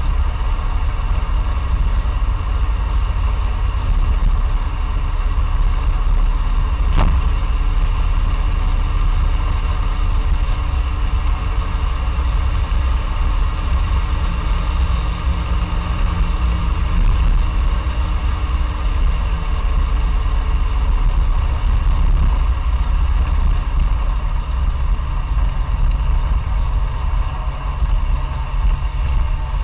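Classic Fiat 500's air-cooled two-cylinder engine running steadily while the car is driven, with a low rumble of road noise underneath. A single sharp click comes about seven seconds in.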